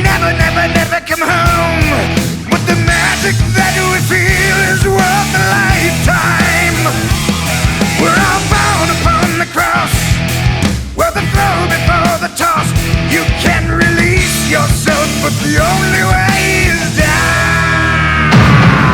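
Rock song playing as the soundtrack, loud and dense, with a steady beat.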